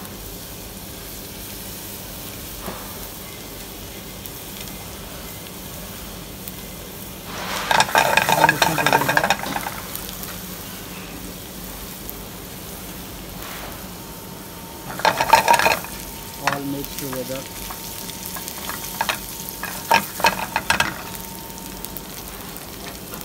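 Chopped ginger, garlic, cumin seeds and whole spices sizzling in hot oil in a non-stick frying pan. The sizzle flares into two louder bursts, about a third and two-thirds of the way through, followed by a run of sharp crackles.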